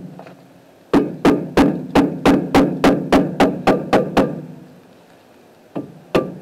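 A rubber mallet striking the rust-stuck brake rotor of a 2006 Nissan Sentra to knock it loose. There is a quick run of about a dozen blows, roughly three a second, then a pause and two more blows near the end.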